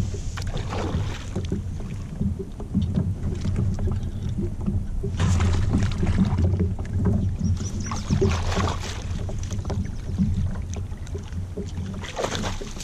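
Hooked largemouth bass splashing and thrashing at the surface beside a kayak while it is netted and landed, in several separate splashes. A steady low rumble runs underneath.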